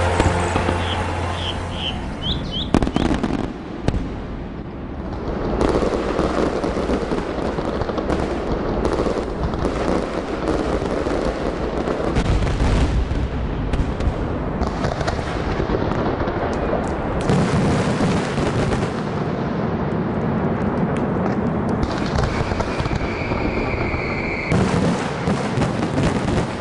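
Fireworks going off: a dense run of bangs and crackling, with a steady high whistle near the end.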